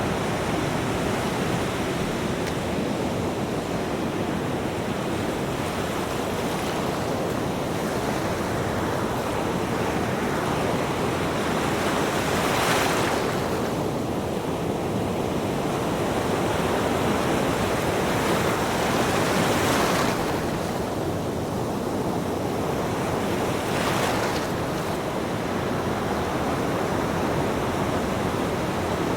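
Ocean waves breaking and washing on the shore in a steady surf roar, with waves cresting louder about 12 seconds in, again near 20 seconds, and more briefly around 24 seconds.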